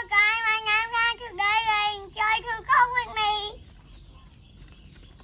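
A young child singing a short phrase in a high voice; the singing stops about three and a half seconds in.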